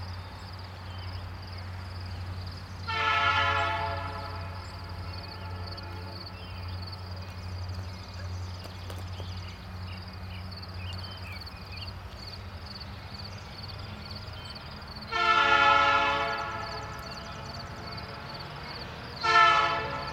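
Locomotive horn on an Indiana Railroad SD9043MAC leading an approaching freight train, sounding three blasts: one about a second long a few seconds in, a longer one later, and a short one near the end. A steady low rumble runs underneath.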